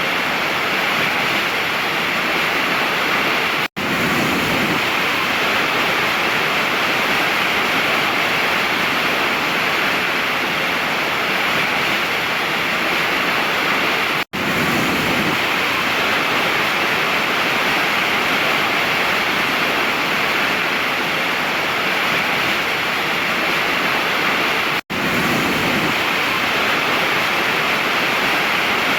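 Waterfall's steady rush of falling water, cutting out for an instant three times, about ten and a half seconds apart.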